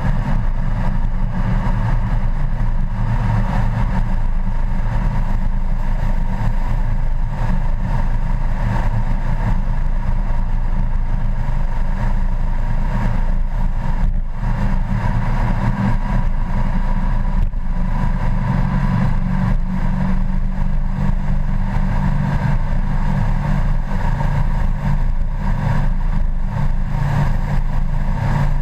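Honda Gold Wing GL1800's flat-six engine running steadily at highway cruising speed, mixed with steady wind and road noise on a bike-mounted camera.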